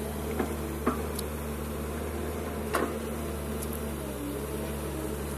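Kobelco SK210 crawler excavator's diesel engine running steadily under hydraulic load as it digs soil, with three short sharp knocks from the bucket working the dirt in the first three seconds.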